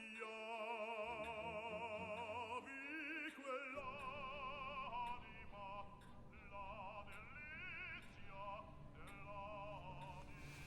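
Operatic singing: a voice holding long notes with wide vibrato, gliding from note to note, with music underneath.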